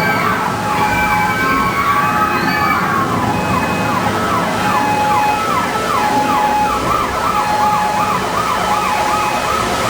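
Several emergency sirens sounding at once over a steady rushing background: slow rising and falling wails at first, then, a few seconds in, a fast yelp of about three sweeps a second.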